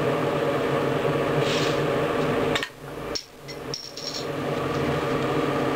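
A knife blade dropped onto a glass bottle's crown cap, knocking it off with a few sharp clicks about two and a half seconds in, over a steady hum.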